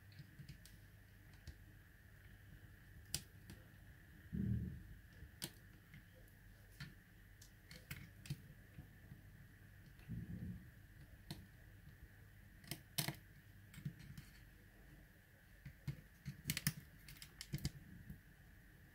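Scattered plastic clicks and light knocks from hands handling the plastic body and battery compartment of a folding mini drone (JJRC / Eachine EX4 type). There are two dull thumps, about four and a half and ten seconds in, and a quick run of clicks near the end.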